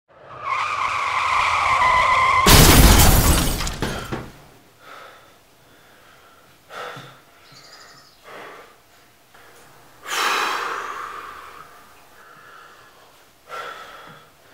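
Car tyres screeching for about two and a half seconds, cut off by a loud crash: the sound of a car accident. Quieter scattered noises follow, and another, shorter squeal comes about ten seconds in.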